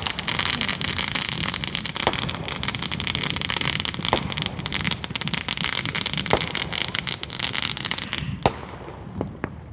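Fireworks crackling and popping in a dense, continuous barrage, with a brief tone about every two seconds. About eight seconds in the crackle thins out to a few scattered pops.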